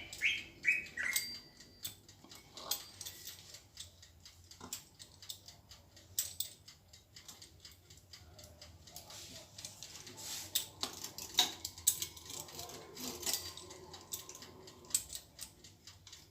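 Scattered light clicks and taps of pastry being trimmed by hand on a work surface. A bird chirps a few times in the first second or so.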